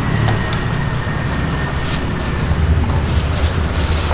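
Steady low rumble of road traffic, with a few light clicks and rustles over it.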